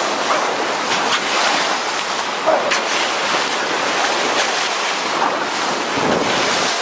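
Sea water rushing and splashing along a moving boat's bow, a steady wash of spray, with wind buffeting the microphone.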